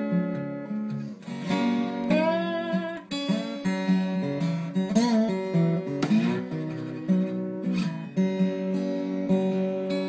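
1930s Dobro resonator guitar played lap style with a steel bar: picked notes and chords that ring on, several of them sliding up into pitch.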